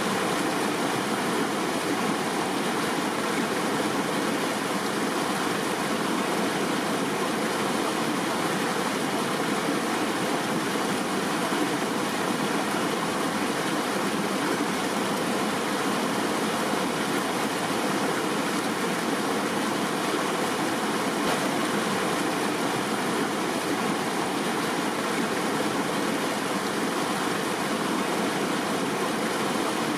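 River water flowing and rushing over rocks: a steady, even wash of water noise.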